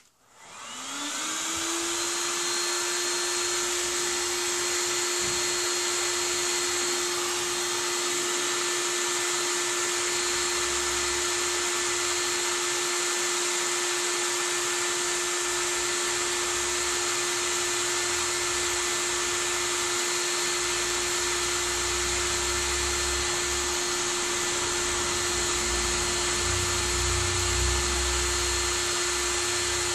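Handheld electric power tool spinning up about half a second in, then running at a steady pitch with a high whine. An uneven low rumble joins it in the second half.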